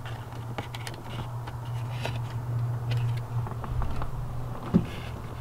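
Faint small clicks and scrapes of a hand pushing and twisting the plastic horn contactor in a steering wheel hub, over a steady low hum, with one short louder sound near the end.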